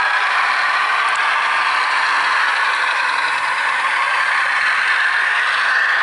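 ESU sound decoder in an LS Models EAD railcar model playing a Poyaud diesel engine sound through its small on-board speaker as the model runs, a steady engine noise whose pitch lifts slightly near the end.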